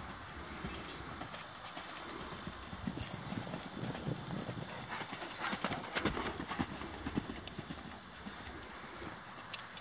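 Hoofbeats of a Morgan x Friesian mare cantering loose over a dirt pen floor, a quick run of dull thuds that grows louder about halfway through.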